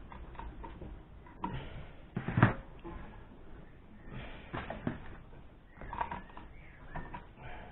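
Small metal clicks and knocks from hand tools and a spanner being worked on a nut on a Zenith VN carburettor, with one sharper knock about two and a half seconds in.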